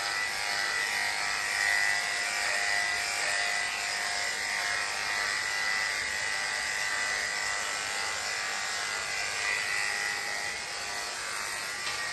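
Electric dog-grooming clippers running steadily as they cut through a long coat around the head and under the chin, a constant hum with no break.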